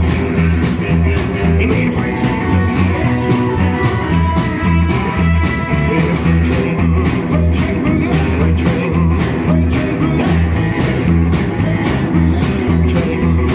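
Rockabilly band playing an up-tempo boogie live, with upright bass, drum kit, acoustic guitar and electric guitar, the bass and drums keeping a steady driving beat.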